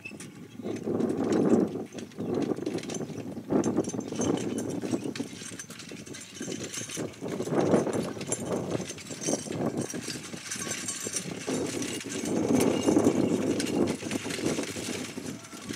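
Hoofbeats of a pair of carriage horses on grass, with the rattle of the four-wheeled carriage they pull. The sound swells and fades several times as the turnout moves through the obstacles.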